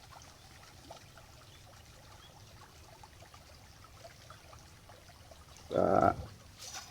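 Faint steady trickle of stream water. About six seconds in, a short, loud sound of about half a second cuts across it, followed by a few faint clicks near the end.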